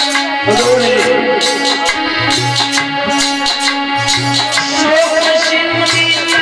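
Live Indian devotional folk singing: a man's voice singing over a harmonium drone, with a drum and rattling hand percussion keeping a steady beat. The voice enters about half a second in and takes up a new phrase near five seconds.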